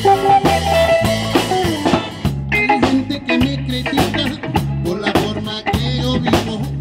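Live band playing: electric bass repeating a riff, drum kit keeping a steady beat with cymbals, and electric guitar lines over the top.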